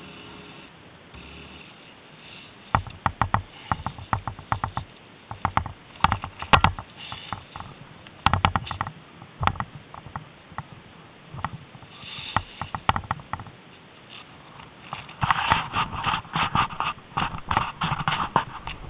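Irregular crunching and crackling of snow close to the microphone, in quick clusters of sharp clicks that grow busiest near the end.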